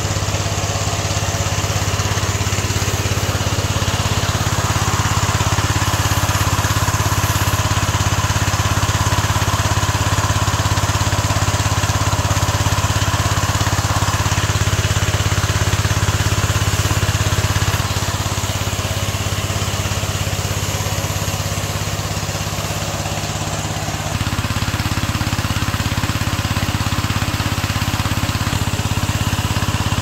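High-pressure car-wash pump running steadily under the hiss of a water jet spraying a car body. Its note shifts twice, about 18 and 24 seconds in.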